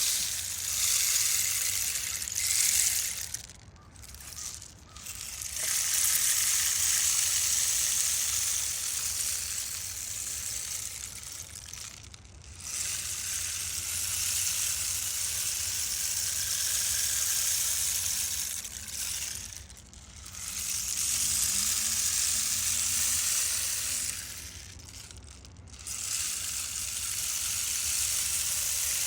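Rainstick being tipped over again and again, each turn sending a long pattering hiss of pellets down the tube that lasts several seconds. Brief breaks come each time it is flipped.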